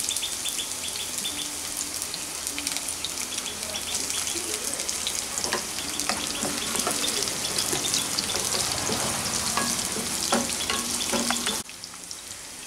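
Sliced onions sizzling and crackling in hot refined oil in a non-stick kadai, with a spatula stirring them now and then. The sizzle drops to a quieter level about a second before the end.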